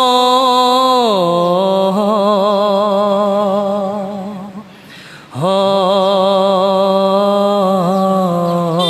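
A man singing unaccompanied: long held wordless notes with a wavering vibrato, sliding down in pitch about a second in. After a short breath about five seconds in, a second long held phrase follows.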